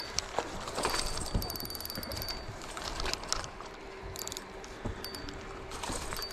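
Fishing reel clicking in short runs of rapid ticks while a hooked bass is played, with scattered knocks of rod and gear handling.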